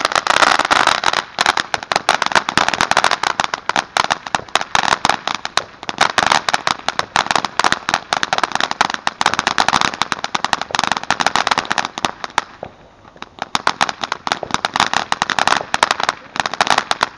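A ground firework going off: a rapid, dense, irregular volley of sharp cracks and pops. It starts all at once, eases off briefly about twelve seconds in, then picks up again.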